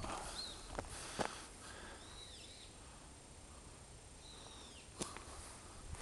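Footsteps on dry fallen leaves, a few near the start and another about five seconds in. A bird gives three high calls that slide downward, spaced about two seconds apart.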